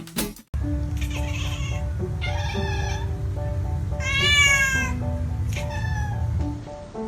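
Meowing over background music: a few drawn-out meows that bend up and down, the loudest about four seconds in, with held low notes underneath.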